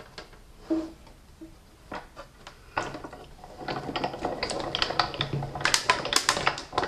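Sizzix Big Shot die-cutting machine being hand-cranked: after a few scattered clicks, a dense run of clicking and cracking starts about three seconds in as the plastic cutting plates and dies go through the rollers. A louder knock comes at the very end.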